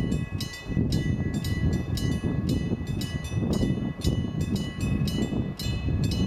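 Electric-bell level-crossing warning bell ringing, its hammer striking the gong at a steady rapid rate of about four strikes a second, each strike leaving a ringing tone, over a low rumble.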